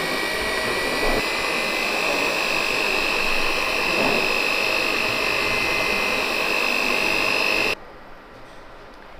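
Moulinex Quick Mix electric hand mixer running steadily, its beaters whisking pancake batter in a plastic tub. It gives a high motor whine that rises a little in pitch about a second in and cuts off suddenly near the end.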